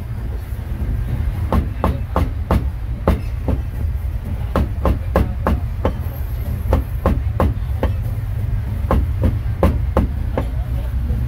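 Cleaver chopping grilled meat on a chopping board, irregular strokes about two or three a second, over a steady low rumble.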